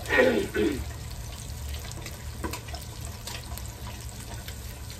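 Fish frying in hot oil in a deep pot: a steady sizzle with scattered sharp pops of spattering oil.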